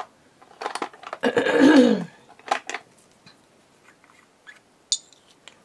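Small plastic lids being twisted and popped off watercolor paint pots and set down: a few sharp clicks and clacks, with a brief squeaky scrape that falls in pitch about a second and a half in.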